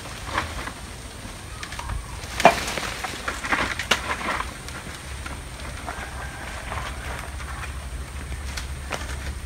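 Rustling and crackling of coconut palm fronds and rope as a coconut bunch is lowered from the tree on a rope. A sharp knock comes about two and a half seconds in, then a burst of rustling, over a low rumble.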